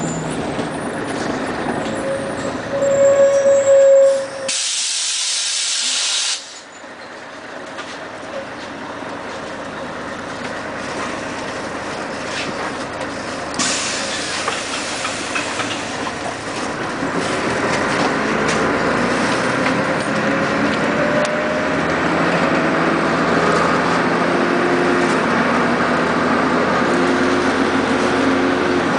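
Cabin noise of a 1996 Scania CN113CLL city bus on the move, with a loud burst of compressed-air hiss about five seconds in. From a little past halfway the bus gathers speed with rising whines, including the drive axle's whine, which is clearly audible on this bus.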